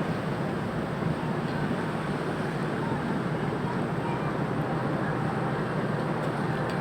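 Steady, even rumble and wash on board a ferry at sea: the ship's running noise mixed with wind and water, with no distinct events.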